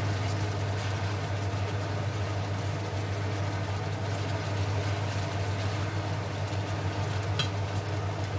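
Sweet soy and orange sauce bubbling and sizzling around chicken wings in a frying pan as it reduces and thickens into a caramel glaze, with tongs stirring through the wings in the first part. A steady low hum runs underneath.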